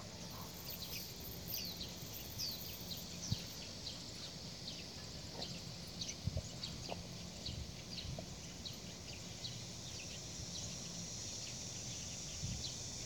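Small birds chirping repeatedly in short, falling notes over a low outdoor rumble, with a couple of soft thumps.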